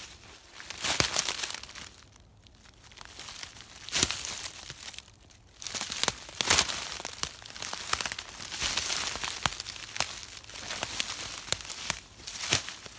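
Footsteps crunching through frozen, crunchy dry leaf litter, with sharp snaps of twigs underfoot, in uneven bursts broken by short pauses.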